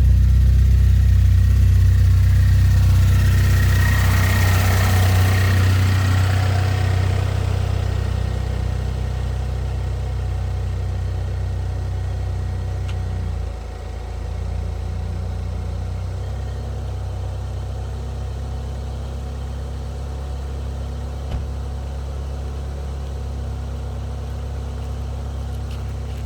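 Turbocharged 2.0-litre engine idling after a cold start, its sound easing down over the first ten seconds or so. There is a brief hiss with a thin whistle about four seconds in, and a short dip in the engine note about thirteen seconds in.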